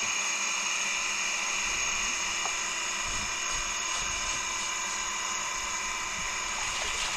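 A small motor running steadily with a high, even-pitched whine.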